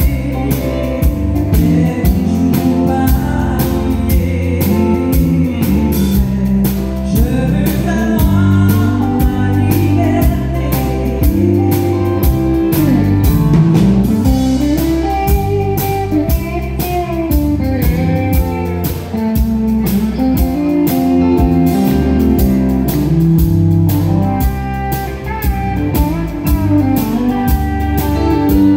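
Live country band playing: a woman singing, with acoustic guitar and pedal steel guitar over a steady drum beat.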